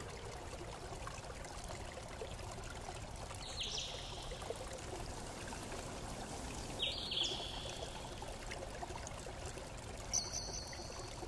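Steady faint hiss with short, high cartoon sound effects as a block character moves: brief falling chirps about 3.5 and 7 seconds in, and a short high double tone about a second before the end.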